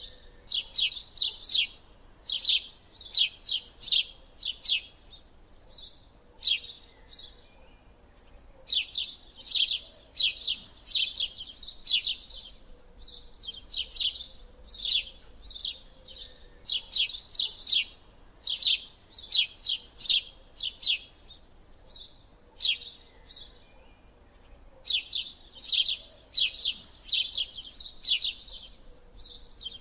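A small bird chirping over and over in quick runs of short, sharp, high chirps, several a second, broken by brief pauses every few seconds.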